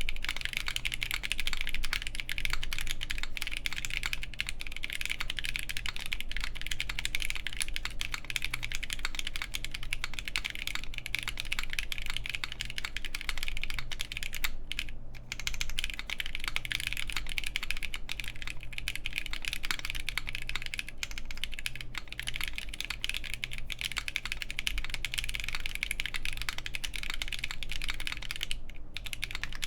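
Steady, fast typing on a Gray Studio BD60 mechanical keyboard (FR4 plate, gasket mount, GMK keycaps) with Krytox-lubed Haimu Pastel Peach linear switches: a dense run of keystroke clacks, with brief pauses about halfway through and near the end.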